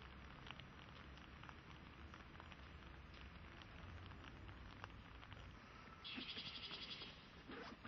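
Faint outdoor ambience with scattered light ticks, then about six seconds in a high, rapidly pulsing animal call lasting about a second, followed by a shorter one near the end.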